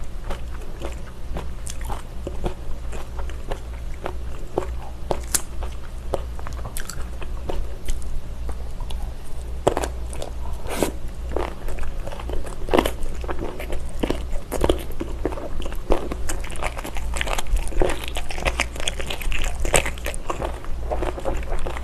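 Crunchy chewing of miyeokgwi, the firm, bumpy sporophyll of sea mustard seaweed: a running patter of crisp clicks and crackles that grows denser and louder after a fresh mouthful about halfway through. A steady low hum lies underneath.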